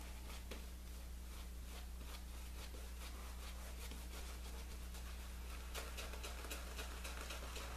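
Silvertip badger shaving brush working shaving soap into a lather on a bearded face: a run of quick, soft, wet swishing strokes, with a faint steady hum underneath. The lather is on the wet side, with too much water left in the brush, which is being worked in.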